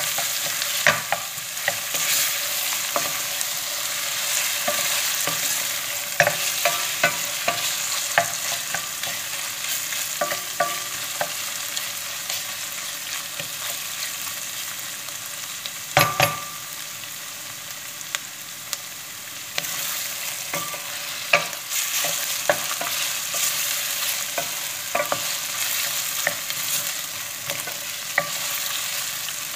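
Beef cubes and onions with tomato and pepper paste sizzling as they fry in a stainless steel pot, with a wooden spoon stirring and scraping and many small taps against the pot, and a louder knock about 16 seconds in. The paste is being fried until its smell comes out, before water is added.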